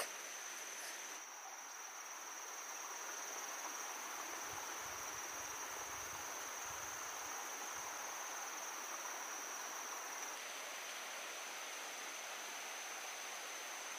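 Insects trilling in one steady, unbroken high-pitched tone over a soft outdoor hiss.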